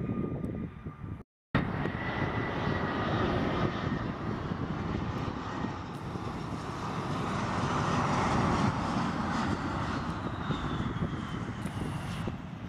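Embraer E175 jet on final approach and touching down, its turbofan engines a steady rush that swells to its loudest about eight seconds in. A faint falling whine runs near the end as it flares to land. In the first second another jet is heard on the runway before the sound cuts out briefly.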